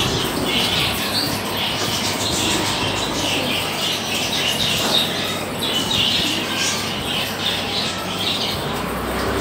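Pigeon squab squeaking in a run of short, high cheeps while it is fed beak-to-beak by its parent, with wing fluttering.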